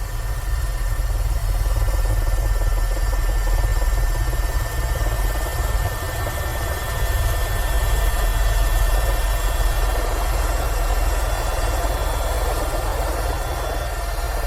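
Airbus H130 EcoStar helicopter running: a steady low rotor drone with a thin, high turbine whine over it.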